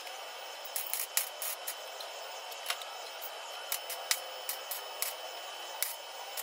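Welding on a car's steel body panel: a steady hiss broken, from about a second in, by irregular sharp crackles and pops as a replacement patch is tacked into a rusted C-pillar.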